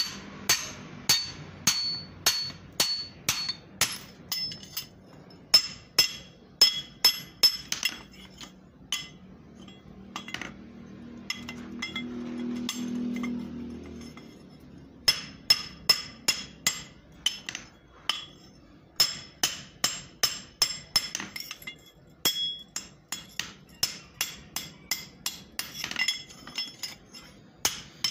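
Blacksmith's hand hammer striking a steel double-bitted axe head on an anvil, about two blows a second, each with a bright metallic ring. The hammering thins out for several seconds in the middle while a low hum swells and fades, then resumes at the same pace.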